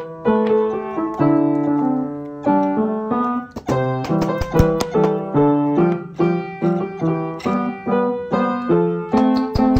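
Background piano music, a melody of evenly paced notes.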